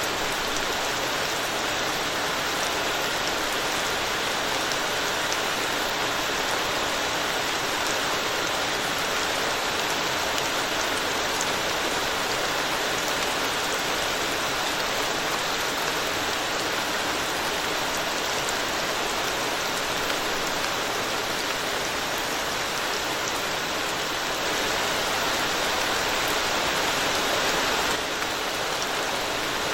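Steady rain falling on a road, an even hiss of countless drops that grows a little louder for a few seconds near the end.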